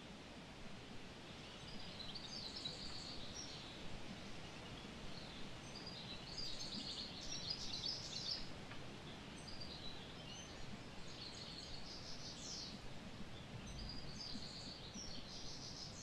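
Small birds chirping and calling in repeated short clusters of high notes over a faint, steady background rush of open-air ambience.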